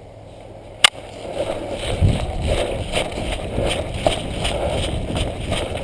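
A single sharp click, then footsteps crunching through dry brush and leaf litter at a walking pace, about two steps a second, with gear rustling.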